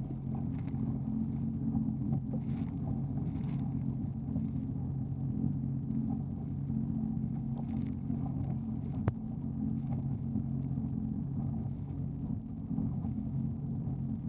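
Jet ski engine running at a steady, even pitch, with a few brief hissing surges and a single sharp click about nine seconds in.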